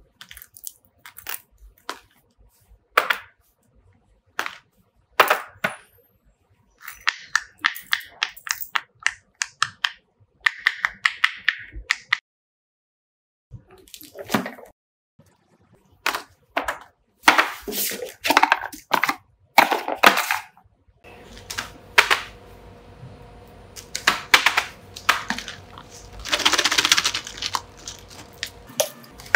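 Small plastic fidget toys and containers being handled and set down: a string of sharp clicks and taps, some in quick rattling runs, with a longer rustling rattle near the end.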